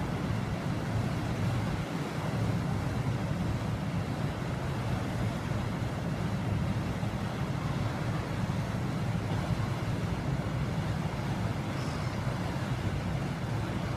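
Passenger lake boat's engine running steady at the pier while its propeller churns the water astern: an even low rumble with water wash and no breaks.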